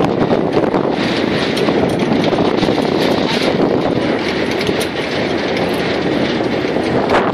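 Swamp buggy under way, heard from aboard the open vehicle: a steady, loud engine and running noise with frequent small rattles and clicks.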